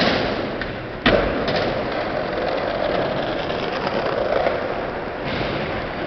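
Steady outdoor traffic noise with one sharp knock about a second in.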